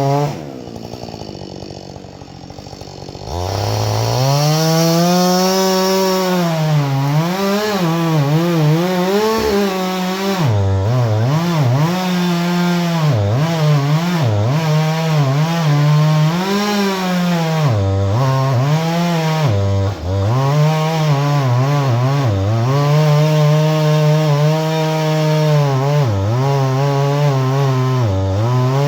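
Husqvarna 562 XP two-stroke chainsaw running. It drops to idle briefly near the start, then runs at high speed for the rest, the engine pitch repeatedly dipping and recovering as the chain works through wood.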